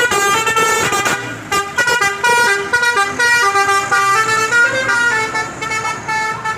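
Basuri telolet bus horn playing a quick tune: several horn tones sound together and step from note to note every fraction of a second.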